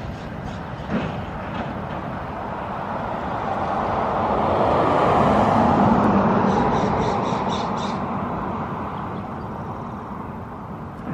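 A vehicle passing by: a rushing sound with a low engine hum that swells over several seconds to its loudest about halfway through, then fades away.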